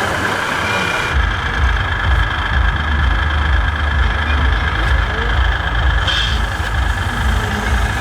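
Diesel-truck engine sound from a radio-controlled model truck's sound module, idling with a steady low rumble that comes in about a second in, over the murmur of an exhibition hall.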